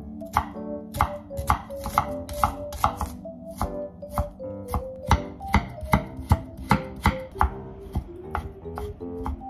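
Chef's knife chopping onion on a wooden cutting board, then mincing ginger near the end: a steady run of sharp knocks about two a second. Background music plays underneath.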